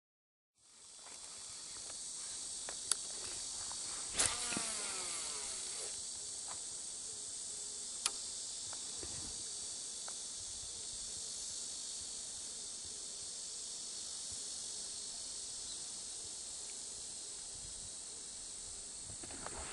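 Steady high-pitched chorus of summer insects, rising in just after the start and holding even throughout. A few faint sharp clicks sound over it, the clearest about four seconds in.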